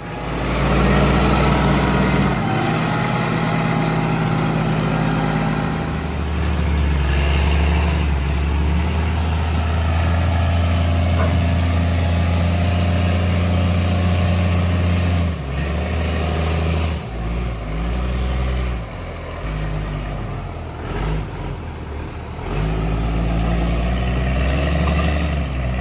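Timberjack log skidder's diesel engine running hard under load while dragging logs up a slight grade. The engine note holds steady for about the first fifteen seconds, then drops and picks up unevenly for several seconds before settling back to a strong, steady pull near the end.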